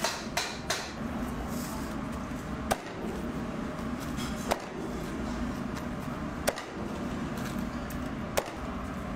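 Kitchen knife slicing through a giant rolled omelette. Each cut ends in a sharp knock of the blade on the cutting board: a few quick knocks at the start, then single cuts about every two seconds, over a steady background hum.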